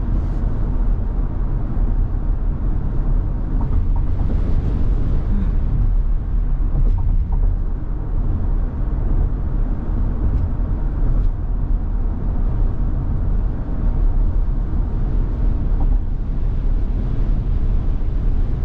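Steady low rumble of road and wind noise inside the cabin of a Tesla Model Y at highway speed, with no engine note from the electric drive, while strong gusty wind pushes on the car.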